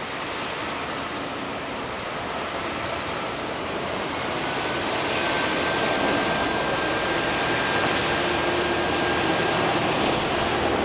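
Sanriku Railway single-car diesel railcar running across a bridge, its engine and wheel noise growing louder as it comes closer. A thin steady high whine sounds for several seconds in the middle.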